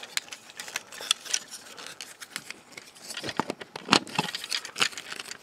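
Plastic parts and joints of a knockoff Transformers Bumblebee toy clicking and rattling as they are twisted by hand toward car mode, with a few sharper clicks in the second half.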